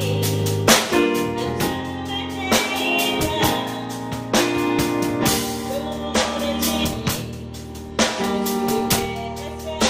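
A woman singing a pop ballad into a microphone in phrases, over music with a drum kit keeping a steady beat, bass and guitar.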